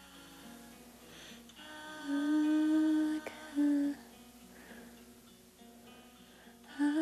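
A woman humming a tune softly to herself, with a long held note about two seconds in and a short one just after, over quiet background music.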